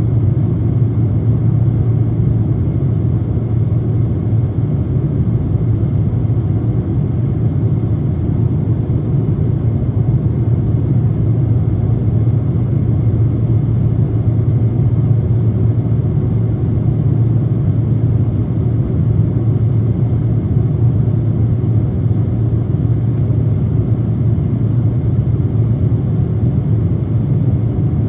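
Boeing 777-200 in flight heard from inside the passenger cabin: the steady, deep drone of its engines and the airflow past the fuselage, with no change in pitch or level.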